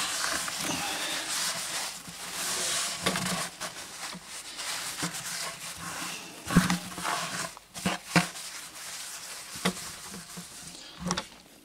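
A cloth wiping and scrubbing the inside of a plastic bucket: a swishing rub, strongest in the first three seconds, then quieter rubbing with several short knocks against the bucket.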